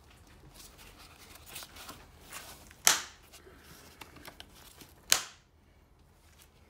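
Spring clips on a BMW F20 118i's air filter housing lid being snapped shut by hand: two sharp snaps about two seconds apart, with light scraping and handling of the plastic box between them.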